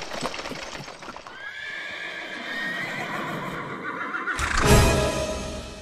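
Carriage horses' hooves clip-clopping with a rattle, then a horse neighing, loudest from about four seconds in.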